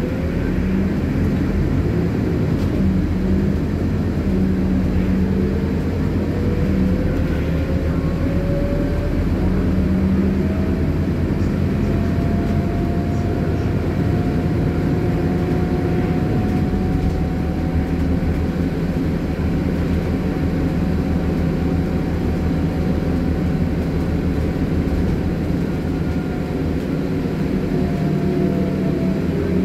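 Scania CityWide city bus under way, heard from inside the passenger saloon: a steady low engine and drivetrain hum with a whine that climbs in pitch as the bus gathers speed, holds steady, and drops again near the end as it slows.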